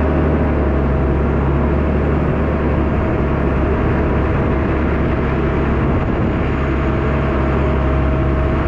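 Case CVX 1135 tractor's diesel engine running steadily in the field, with a low drone and a thin steady whine above it.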